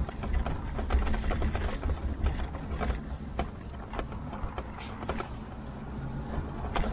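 A Tern HSD bike rolling over a rough path surface: a steady low rumble with frequent irregular clicks and rattles as the bike jolts over bumps.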